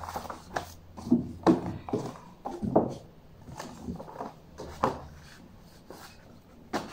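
Books being handled: picture books picked up from a pile, shuffled and set down on a wooden bookshelf, giving irregular knocks, taps and rubbing of covers.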